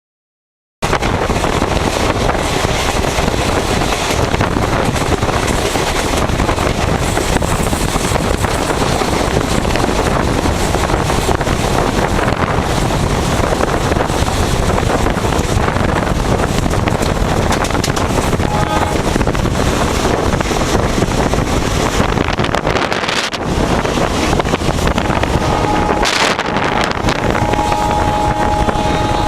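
Express train running at speed: a loud, steady rushing noise with wind on the microphone. Near the end a locomotive horn starts sounding, a chord of several steady tones.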